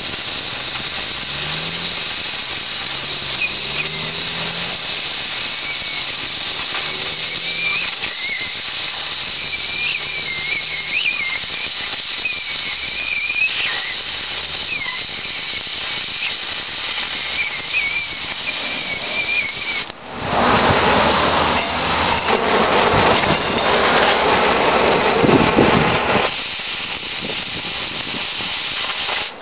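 Oxyacetylene cutting torch hissing steadily as it cuts steel plate, with a faint wavering whistle over the hiss. About two-thirds of the way through, the sound dips briefly and then turns louder and rougher for several seconds before settling back to the steady hiss.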